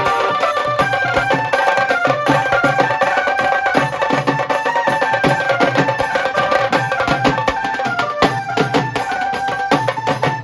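Dhol and tasha drums playing a fast, dense rhythm, with a melody line that steps up and down over the drumming.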